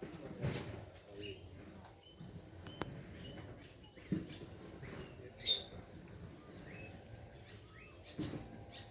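Birds chirping in short, scattered calls over outdoor background noise, with a few dull low thumps.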